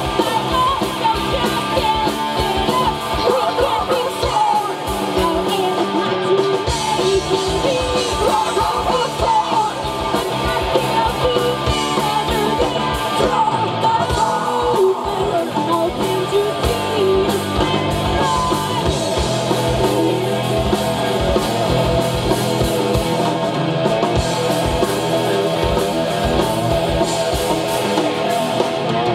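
Live rock band playing: a female lead singer sings over electric guitars, bass and a drum kit.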